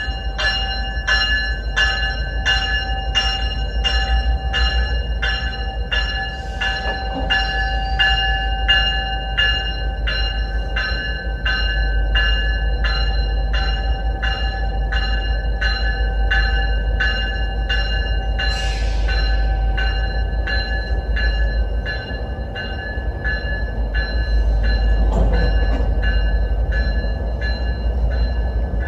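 Locomotive bell on a GO Transit diesel train ringing steadily, about two strikes a second, over the low rumble of the train. A short hiss of air breaks in about two-thirds of the way through.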